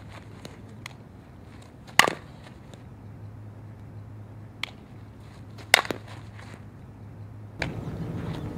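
Softball bat hitting balls on soft slap swings: two sharp cracks of contact, about two seconds in and again just before six seconds, with a fainter click between them.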